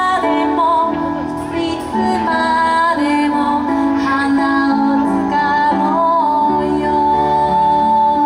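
A woman singing a slow song over instrumental backing, her voice wavering in a melody and then holding one long note near the end.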